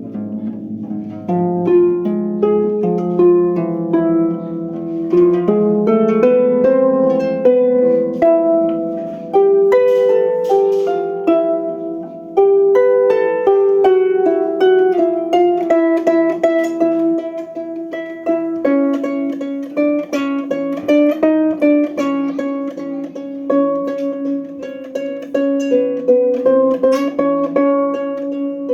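Solo improvised music on a plucked string instrument: a steady flow of quick plucked notes that ring and fade, over lower held notes.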